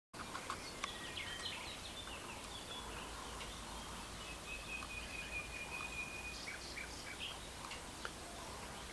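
Several birds chirping and calling over a steady outdoor background noise, with one long, even, high-pitched call through the middle.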